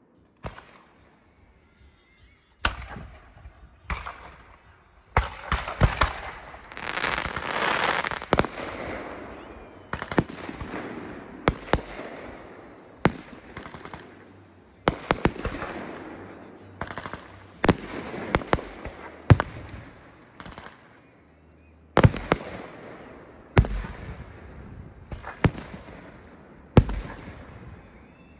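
Fireworks display: aerial shells bursting in sharp bangs every one to two seconds, each fading out in echo. About a fifth of the way in, the bangs bunch up into a few seconds of dense crackling.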